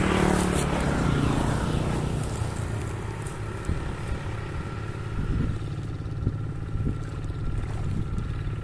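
A motor vehicle passes close by right at the start, its engine sound falling in pitch as it goes away. A steady low rumble of road traffic follows.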